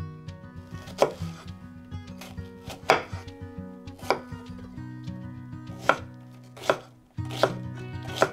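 Kitchen knife chopping an onion on a wooden cutting board: separate sharp strokes, roughly one a second, starting about a second in, over soft acoustic guitar background music.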